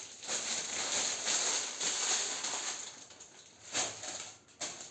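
Rustling of packaging being handled, followed by two short knocks near the end.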